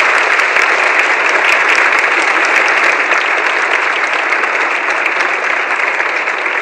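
Large audience applauding steadily after a speech, a dense clapping heard on an old long-playing record.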